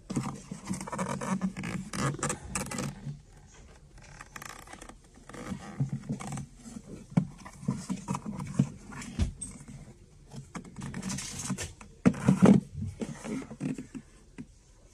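Plastic gravity-feed pet water dispenser being handled and shifted on a tile floor: repeated scrapes, knocks and rattles of the plastic bowl and bottle, coming in spells with short pauses between.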